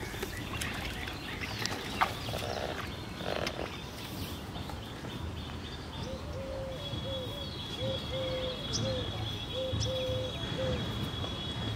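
Rural outdoor ambience with birds calling: a run of about ten short, low repeated notes through the second half, and a steady thin high tone coming in about halfway through. A sharp click about two seconds in.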